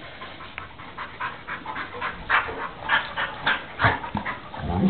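Two hounds play-wrestling, giving short breathy huffs and pants a few times a second, louder near the end.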